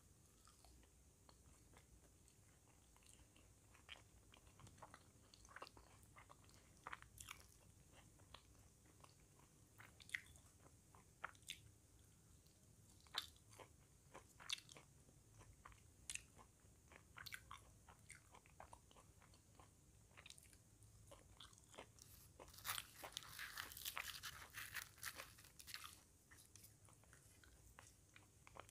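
Chewing of puri and crispy fried okra (bhindi fry), with scattered small crunches and mouth clicks every second or so. A denser run of crackling lasts a few seconds near the end.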